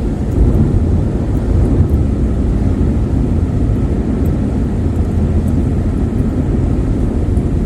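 Steady low rumble of road, tyre and engine noise heard from inside a car's cabin at highway speed on wet roads.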